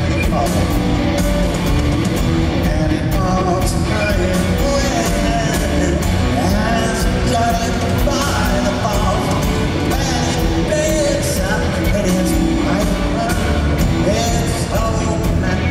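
Live rock band playing loudly, recorded from the audience: electric guitar, bass and drums with a steady driving beat, and a lead voice carrying the melody over it.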